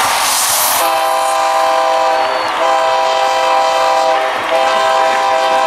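A loud multi-note air horn sounding a chord in long blasts, three in a row with short breaks, over a cheering crowd. It follows a short hiss at the start that fits a smoke jet firing at the tunnel.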